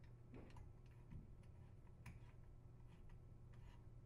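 Near silence with a few faint, irregular clicks of a screwdriver working the screw of a metal hose clamp, tightening the drain hose onto the disposer's inlet.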